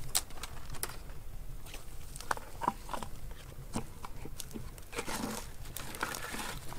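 Footsteps on dry ground littered with dead twigs, with irregular crackles and snaps of brittle branches underfoot.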